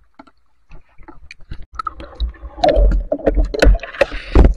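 Shallow river water sloshing and splashing around the camera as it moves through and under the water, with scattered clicks and knocks. It starts near quiet and builds to loud splashes and thuds about two seconds in.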